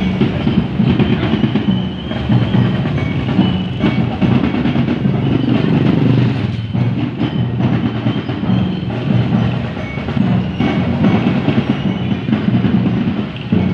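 Steady engine rumble of a slow procession of motorcycles and a pickup truck, with rhythmic percussion knocking through it.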